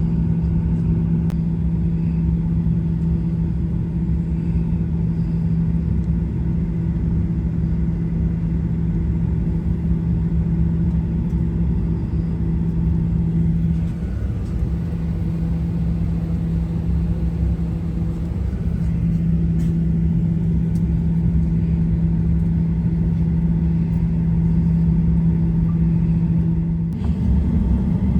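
Cabin noise inside a Boeing 737-800: a steady low rumble with a constant hum from the aircraft, changing in character about a second before the end.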